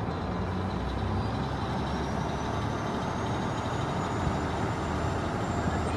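Canal boat's engine running steadily under way, with water rushing past the hull. A faint high whine slowly rises in pitch through the second half.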